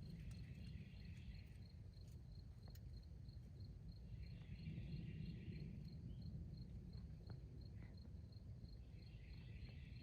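Faint woodland ambience: a steady high chirping at about three chirps a second, a lower call repeated three times at intervals of four to five seconds, and a low rumble underneath.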